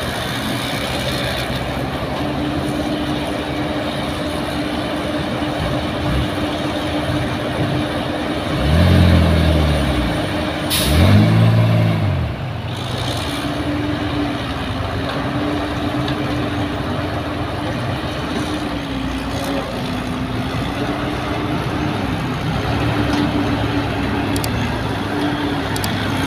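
Caterpillar hydraulic excavator's diesel engine running with a steady hydraulic whine while digging and loading. Near the middle, its revs swell up and fall away twice under load, with a brief sharp hiss of air between the two swells.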